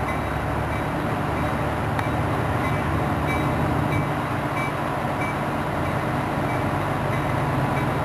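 EMD F59PH-type diesel locomotive engine running steadily under load, a deep drone with its exhaust smoking heavily.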